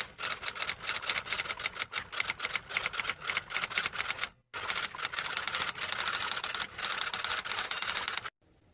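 Typing sound effect: a fast, uneven run of clattering key strikes that breaks off briefly about four and a half seconds in, then carries on until shortly before the end.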